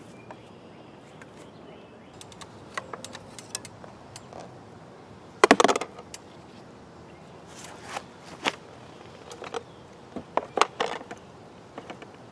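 Faint outdoor background with scattered sharp clicks and knocks, the loudest a short cluster about five and a half seconds in.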